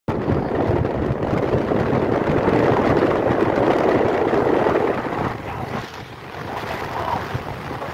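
Wind rush over the microphone and motorbike running noise while riding at speed, dropping off about five seconds in.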